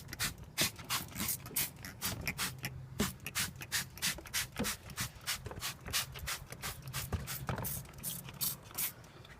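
Hand trigger spray bottle of degreaser pumped rapidly over and over, each pull giving a short hissing spurt, about four to five a second, as the engine bay is given a second coat.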